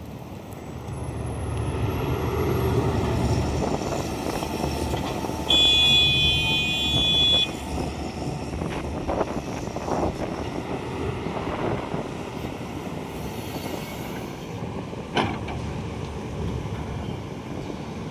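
A large vehicle running with a steady low rumble; a horn sounds for about two seconds near the middle, and there is a sharp knock near the end.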